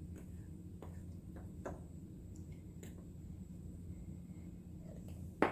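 A few faint, scattered light taps and clicks of a utensil against a bowl as seasoned flour is stirred, over a steady low hum.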